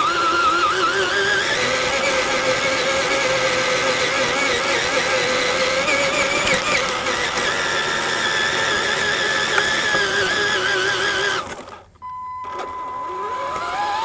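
Radio-controlled Tamiya TXT-1 truck's electric motors whining, the pitch wavering up and down with the throttle, picked up by a camera riding on the truck. About twelve seconds in the whine drops away almost to nothing, then rises steadily in pitch as the truck speeds up again.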